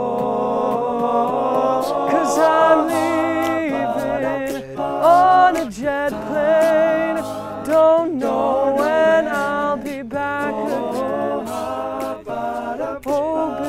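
Male a cappella group singing wordless harmony, with a lead voice gliding and wavering above the sustained chords. Sharp clicks keep a beat throughout.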